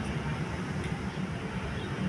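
Steady low rumble of a vehicle engine and road traffic, with no horn sounding.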